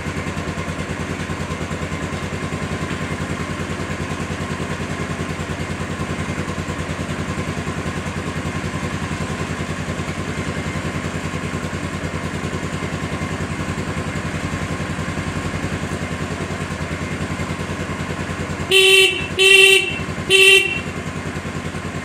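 A 1978 Yamaha SR500's air-cooled single-cylinder engine idling steadily. Near the end its electric horn sounds three short beeps as the horn button on the handlebar switch is tested.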